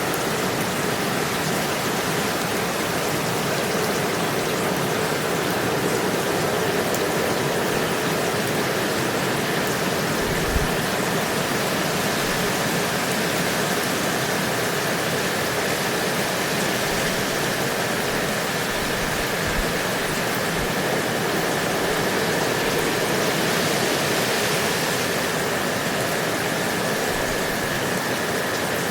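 Steady rain falling, an even unbroken hiss with a soft low thud about ten seconds in.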